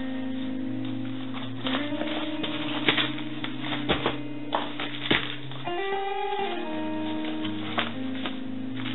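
Background music led by plucked guitar, held notes shifting in pitch with picked strikes over them.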